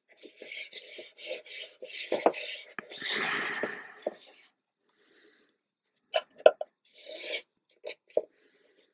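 Hands rubbing and smoothing printed fabric onto a glued box side: a run of short rubbing strokes for about four seconds, then after a pause a few light taps and handling noises.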